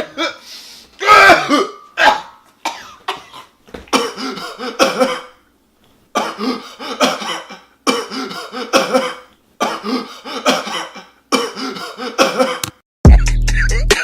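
A person coughing and clearing their throat again and again in short rough bursts, coming at a fairly steady pace in the second half. About a second before the end, a hip-hop beat with heavy bass and sharp drum hits cuts in.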